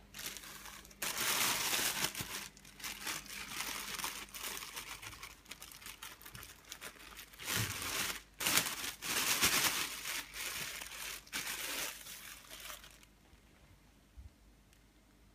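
Plastic bread bag crinkling as it is handled, in irregular bursts with a short break about halfway, then stopping about two seconds before the end.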